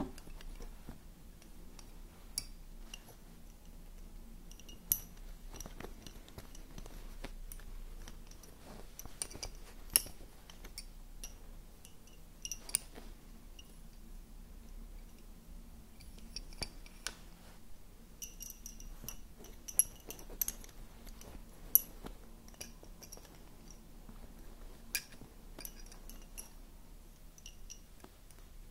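Slender wooden Honiton lace bobbins clicking and clinking against each other as pairs are crossed and twisted. The clicks are short, sharp and irregular, with a few louder knocks among softer ones.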